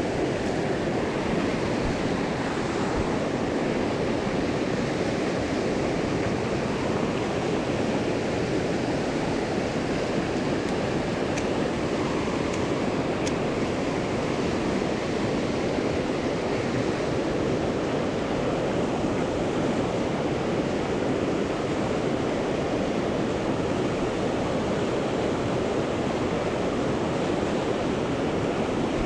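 Steady rush of flowing water from a mountain stream running over rocks.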